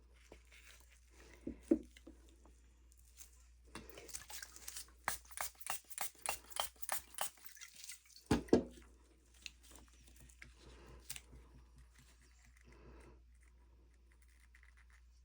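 A trigger spray bottle of alcohol pumped repeatedly over resin, a quick series of hissing sprays about three a second, followed by a single thump. A few light knocks come first.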